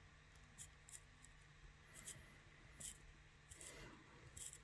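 Faint, irregular scratchy clicks of fingers turning the crown of an automatic watch with an ETA 2824-1 movement, hand-winding it. The movement is already fully wound, so the mainspring slips in its barrel instead of winding tighter.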